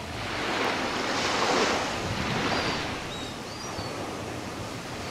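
Ocean surf: a wave breaking and washing in, swelling and then fading over about two seconds, followed by a softer steady wash.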